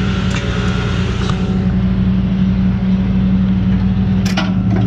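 Flatbed tow truck's engine and hydraulic system running with a steady hum as the bed's winch and hydraulics lower a vehicle off. A couple of short clicks near the end.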